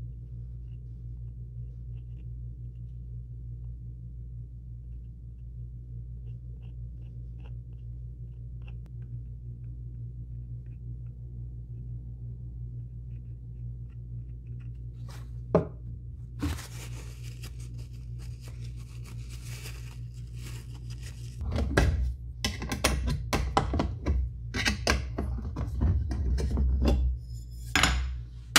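A steady low hum for the first half, broken by one sharp click. In the last several seconds come repeated thunks, knocks and scrapes as objects are handled and set down on a wooden workbench beside a tin of polyurethane.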